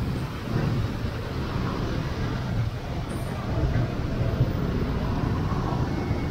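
Street traffic: motorcycle and car engines running close by, a steady low rumble.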